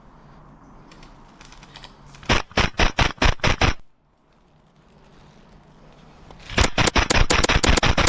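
Airsoft gun firing two rapid bursts, each about a second and a half long: the first about two seconds in, the second, faster, near the end.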